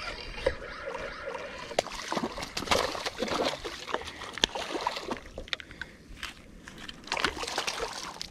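A small hooked snook splashing and thrashing at the water's surface as it is reeled in. The splashes come in an irregular run, with a louder cluster near the end.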